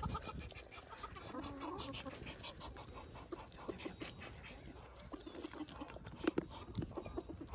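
Domestic hens clucking softly, among scattered faint clicks.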